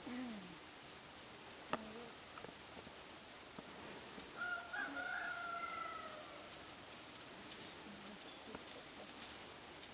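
A rooster crowing once, about four seconds in: a few short notes run into one long, slowly falling call. It sounds faint against the quiet snowy background.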